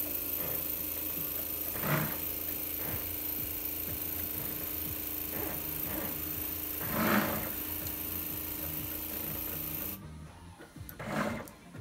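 Pick-and-place machine running: the gantry's stepper motors whir as the four-nozzle head moves, over a steady machine hum. The moves swell louder about two seconds in, around seven seconds, and again near the end, and the steady hum cuts off suddenly about ten seconds in.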